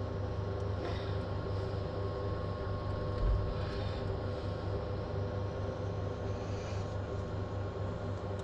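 Steady mechanical hum with a strong low drone and a thin high tone held throughout; a single soft thump about three seconds in.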